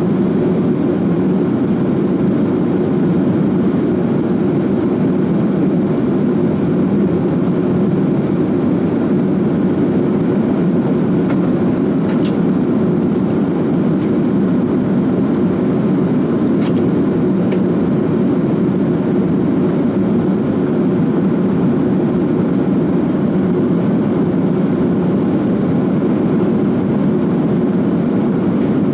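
Steady in-cabin noise of an Airbus A340-600 in flight: an even, low rushing drone of airflow and its four Rolls-Royce Trent 500 engines, unchanging throughout. A few faint ticks are heard around the middle.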